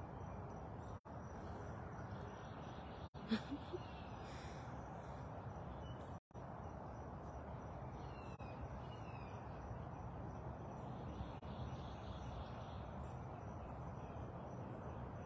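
Steady outdoor background noise with a few faint bird calls about eight to nine seconds in. The sound cuts out completely for an instant three times.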